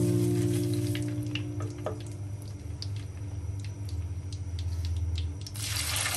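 Mustard and fenugreek seeds frying in hot oil in a clay pot, with scattered small pops and crackles, under background music that fades out in the first two seconds. About five and a half seconds in, sliced onion drops into the oil and a steady sizzle starts.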